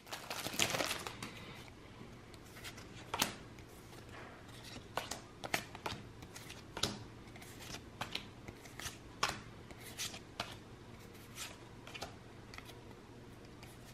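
Pokémon trading cards being flipped through one at a time by hand: light, irregular snaps and slides of card against card, with a short rustle at the start.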